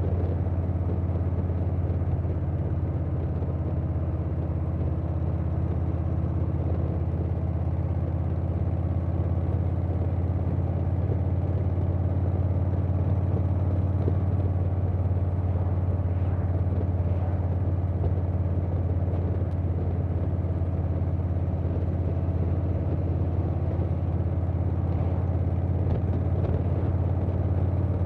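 Harley-Davidson Softail Standard's Milwaukee-Eight V-twin running through a Vance & Hines Big Radius 2-2 exhaust while riding, holding a steady deep note with no change in revs.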